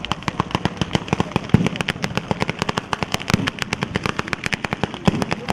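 Batteria alla sanseverese: chains of ground firecrackers going off in a rapid, uneven crackle of sharp bangs, about ten a second, with a couple of heavier bangs mixed in.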